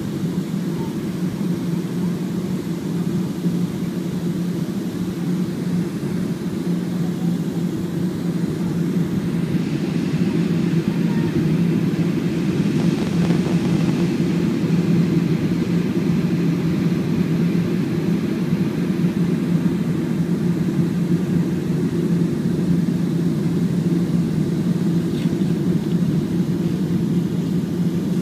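Steady cabin rumble of a Boeing 737 jet airliner on final approach with flaps extended: engine and airflow noise heard from a window seat over the wing. It grows a little louder about ten seconds in.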